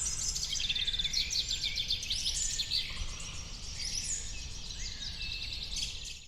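Songbirds chirping and singing together in a dense, busy chorus of rapid high tweets and short trills over a low steady rumble; the sound cuts off suddenly at the end.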